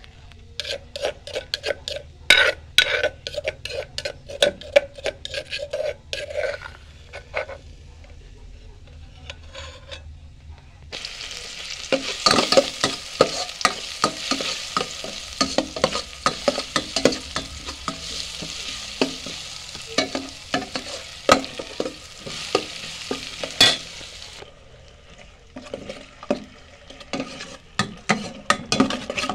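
Metal ladle scraping and clinking against a frying pan as food is stir-fried. About eleven seconds in, a loud sizzle starts suddenly and runs under the stirring for about thirteen seconds, then stops, leaving only the scraping.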